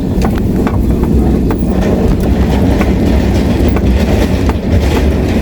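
A car rumbling steadily as it moves slowly, with scattered light clicks and knocks throughout.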